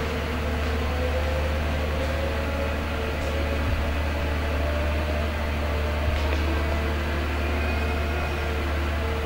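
John Deere 1210E forwarder's diesel engine running steadily with a low hum while the machine drives along carrying long logs in its crane grapple. There are two faint dull knocks, about a third and two-thirds of the way in.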